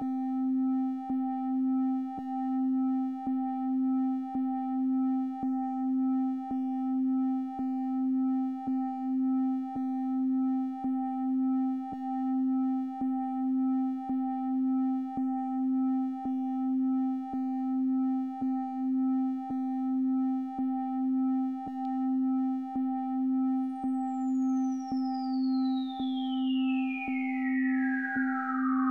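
Synthesized sine-like tone pulsing about once a second: a strong low hum with fainter steady higher tones above it and a soft click at each pulse. Near the end a high whistling tone glides steadily down in pitch over it.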